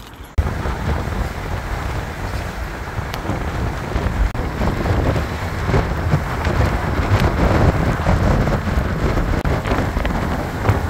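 Wind buffeting the microphone in a MINI convertible driving with the roof down, over the car's road and engine noise. It cuts in suddenly about half a second in.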